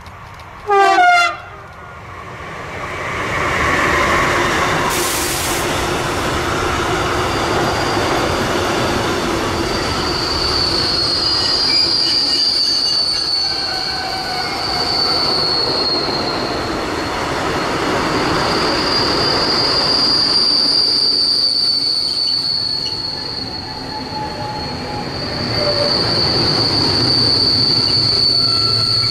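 A train passing close by with its wheels squealing in a steady high tone, after a short horn blast about a second in.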